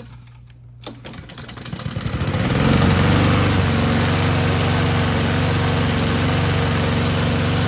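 Honda GCV160 overhead-cam single-cylinder lawn mower engine starting up and rising over a couple of seconds to a steady, loud run, its crankcase overfilled with ketchup in place of oil.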